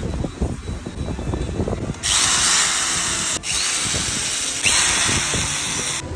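Cordless drill spinning and driving the fastenings on a small electric fan motor's end plate, running from about two seconds in with a brief stop partway through. Before it starts, light clicks and knocks of small metal parts being handled.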